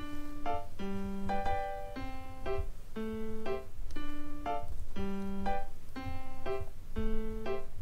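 Background music: a light keyboard tune of short notes in a repeating pattern.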